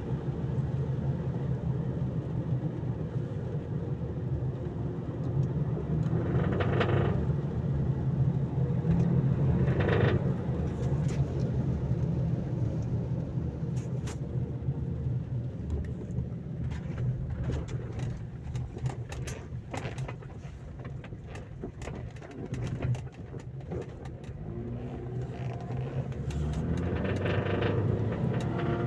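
Mazda CX-7 engine running with a knock, blipped to higher revs about seven and ten seconds in and again near the end. Through the middle a string of sharp ticks and knocks sounds over the running engine.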